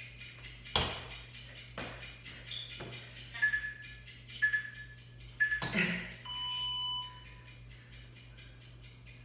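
Thuds of a person exercising on a hard floor, about one a second, over a faint steady ticking. A workout interval timer then gives three short beeps a second apart and one longer beep, the countdown that ends a work interval.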